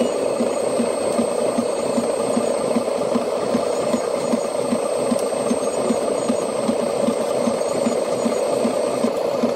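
Radio-controlled construction machines running: a steady mechanical hum with a quick, regular pulsing and a faint high whine.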